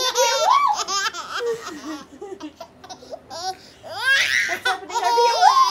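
A baby laughing in bursts of high-pitched giggles and squeals, loudest in the first second or so and again near the end.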